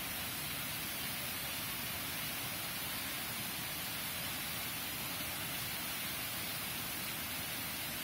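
Waterfall cascading over rock ledges into a pool: a steady, unchanging rushing hiss of falling water.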